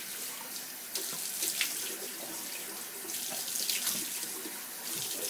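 Water running from a tap into a sink while someone rinses their face, with irregular splashes over the steady flow.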